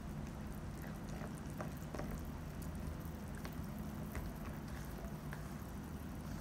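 Silicone spatula stirring tapioca starch into a wet, milky batter in a plastic bowl: soft wet mixing sounds with a few faint clicks of the spatula against the bowl, over a steady low hum.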